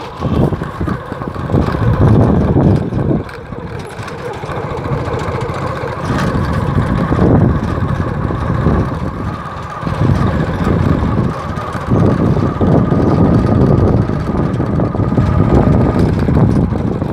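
Engine of a moving vehicle running steadily, with wind rumbling on the microphone in gusts.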